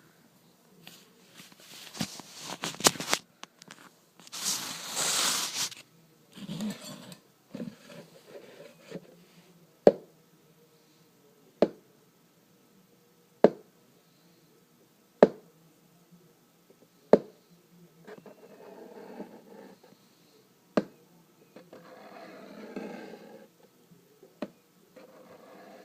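Close-miked ASMR trigger sounds: scratching and rustling handling noises, then a slow series of single sharp taps about every second and a half to two seconds, ending in softer rustling.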